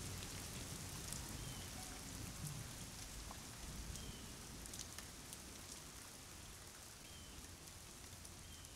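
Rain falling steadily, an even patter with scattered single drops and a few faint short chirps, slowly fading.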